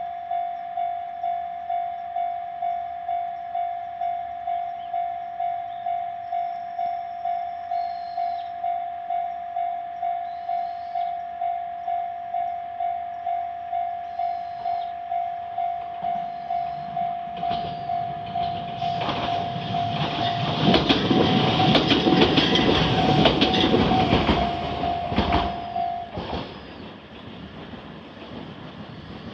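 Level-crossing warning bell ringing about twice a second while a train approaches and passes. The train is loudest for about six seconds, wheels clacking over the rail joints, and the bell stops just after it has gone by.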